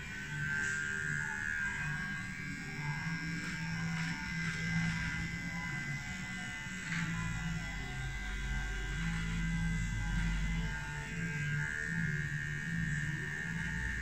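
Electric beard trimmer switched on at the start and running with a steady whine as it is worked over a full beard.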